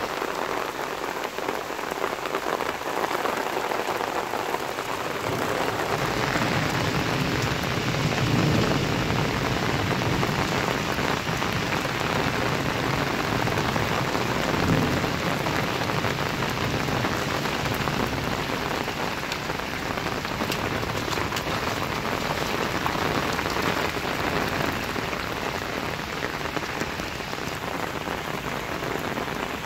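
Heavy cloudburst rain pouring onto a flooded street, the drops splashing on standing water in a dense, steady hiss.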